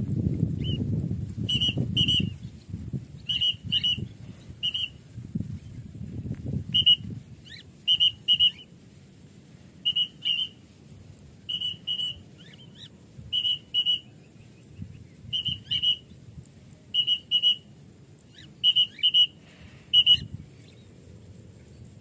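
A whistle sounding short high pips, mostly in quick pairs, a pair every second or two. Faint chirps come between them, and wind rumbles on the microphone in the first couple of seconds.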